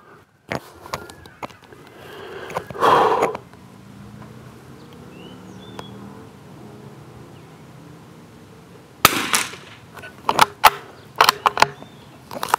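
A single shot from a CZ Brno Model 4 .22 rimfire bolt-action rifle about nine seconds in, a sharp crack. About a second later comes a quick run of metallic clicks as the bolt is worked to eject the case and chamber the next round. A brief rustle of handling comes near three seconds.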